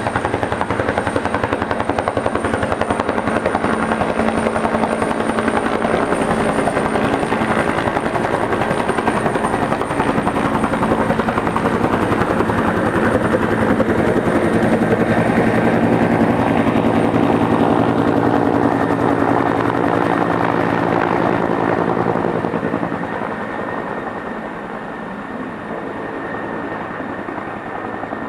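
Bell 212 helicopter running: the beat of its two-bladed main rotor under a thin, steady high whine. Loud and steady at first, it drops in level about 23 seconds in as the high whine fades.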